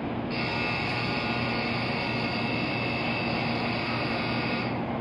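Platform departure signal for a shinkansen: a steady, high electronic ringing starts about a third of a second in and cuts off suddenly near the end. Under it runs the steady low hum of the standing N700A train.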